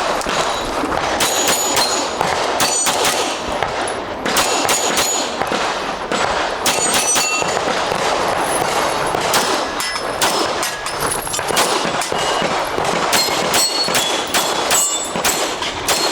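Rapid pistol fire in a competition string, the shots mixed with the high ringing clang of bullets hitting steel plate targets.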